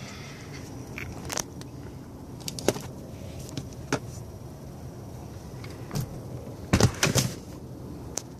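Scattered clicks and knocks from handling things inside an SUV's cabin, with a cluster of louder thumps about seven seconds in, over a steady low hum.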